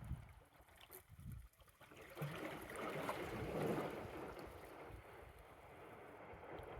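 Gentle wave washing in over rocks, swelling about two seconds in and fading away, with wind buffeting the phone's microphone.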